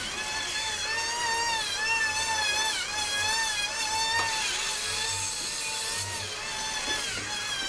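Electric sliding compound miter saw running and cutting through a wooden strip: a steady motor-and-blade whine that wavers up and down in pitch as the blade bites the wood.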